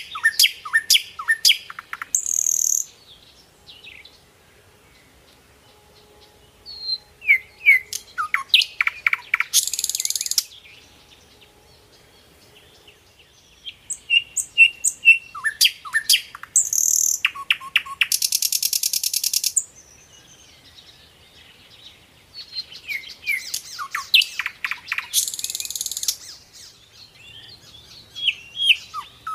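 Birds chirping: bursts of quick chirps and falling whistles, several with a high buzzy trill, separated by pauses of a few seconds.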